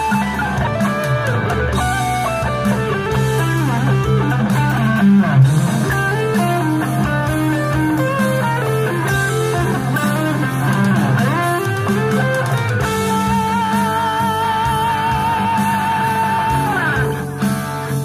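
Distorted electric guitar playing a lead line over a rock backing track, played back through PreSonus Eris 3.5 studio monitors. In the last few seconds a long note is held with vibrato, then slides down just before the end.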